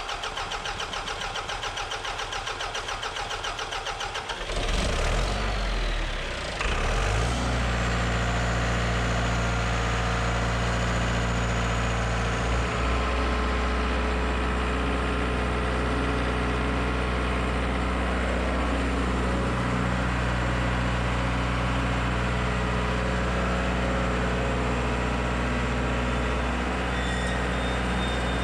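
A diesel engine cranked by its starter, with an even, regular chug for about four seconds before it catches, revs briefly and settles into a steady idle. It is running again with its fuel system freshly primed, after a clogged fuel pickup had been starving it of fuel.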